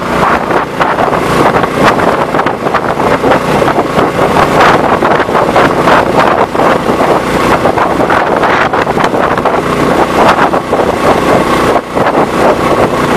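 Swamp Runner longtail mud motor running steadily, driving the freighter canoe at speed, with wind buffeting the microphone.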